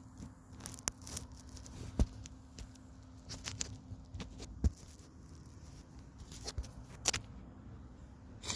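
Scattered crackles and rustles with a few sharp knocks, the loudest about two seconds in and again near the middle, over a faint steady hum.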